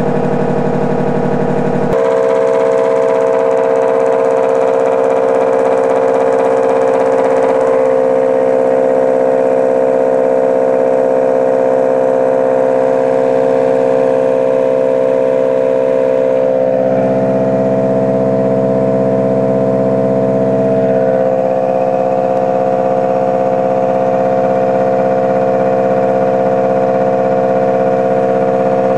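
Loud steady electrical whine from a pulse motor generator's pulsed coils and driver circuit, several tones sounding together. It shifts in tone a few times as it runs.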